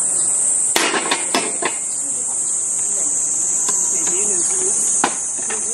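A piece of wood striking the front visor of a replica Arai motorcycle helmet on a mannequin head: a quick cluster of sharp knocks about a second in, then a couple of faint clicks. A steady high insect chirring runs throughout.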